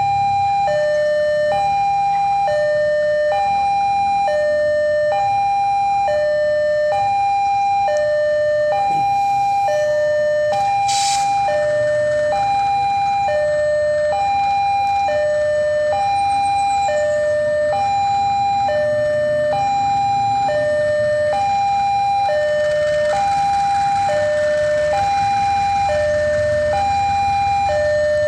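A two-tone electronic warning alarm sounds steadily, alternating between a higher and a lower note about once a second. Under it is the low rumble of an idling diesel locomotive, with a short hiss about eleven seconds in.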